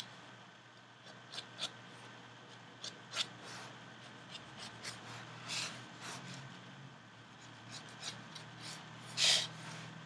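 Pen nib scratching across a paper card in short drawing strokes, one after another at an uneven pace, with a longer, louder stroke near the end.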